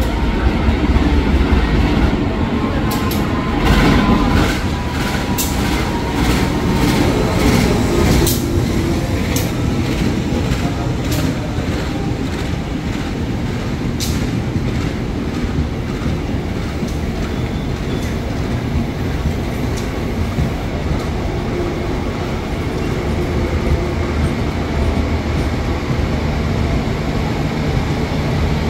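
A diesel-electric locomotive rumbles past, followed by passenger coaches rolling by. Their wheels click sharply over rail joints, about one or two clicks a second, through the first half. The sound then settles into a steady, quieter rolling noise.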